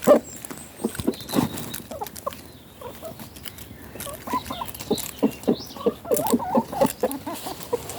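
Chickens clucking in short, quick calls, thickening in the second half, as they feed on bread, with scattered sharp taps among them.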